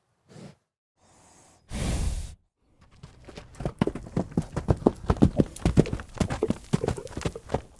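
A horse blows out a loud snort about two seconds in, then its hooves clatter on hard ground in a fast, uneven run of many strikes a second.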